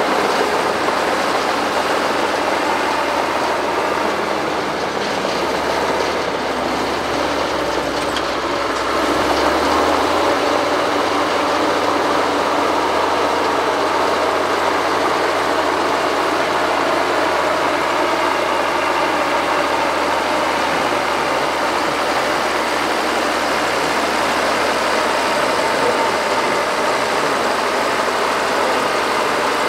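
Diesel engines of a Shantui SD16L crawler bulldozer and nearby excavators running steadily while working, with a low hum underneath that shifts about ten seconds in.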